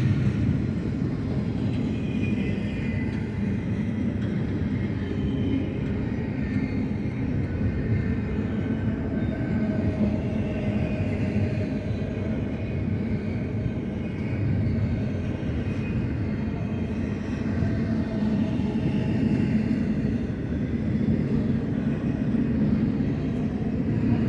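Double-stack intermodal well cars rolling past on the main line: a steady rumble of steel wheels on rail, with faint high tones coming and going.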